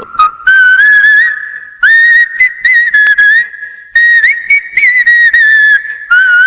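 Whistled melody of a film-theme ringtone: a single high line in short phrases, sliding up and down between notes.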